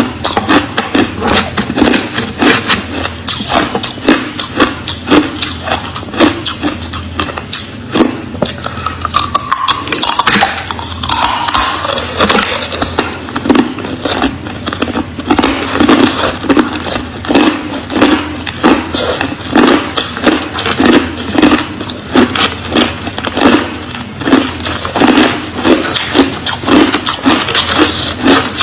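Crushed clear ice being bitten and chewed close to the microphone, a steady run of loud crunches about twice a second.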